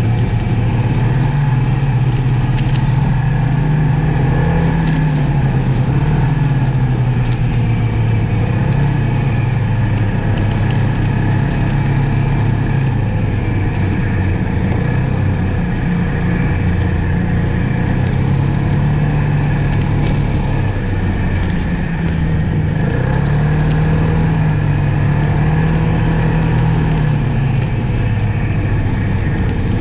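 Snowmobile engine running under way, its pitch rising and falling as the throttle is opened and eased.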